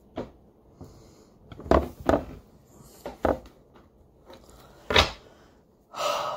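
Tarot cards being gathered and the deck knocked square on a wooden tabletop: about five sharp knocks at irregular intervals, then a short rasp of the cards near the end.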